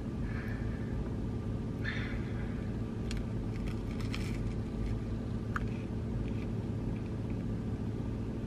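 Steady low rumble of a car, heard from inside the cabin, with faint crunching as a toasted sandwich is bitten and chewed.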